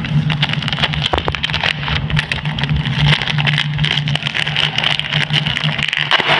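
Clear plastic sleeve crinkling and crackling as it is torn open and pulled apart by hand, over a steady low engine-like hum.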